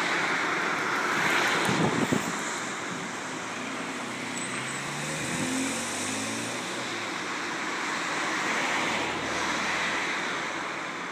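Road traffic running past, with an engine hum that rises and falls through the middle, and a few knocks about two seconds in.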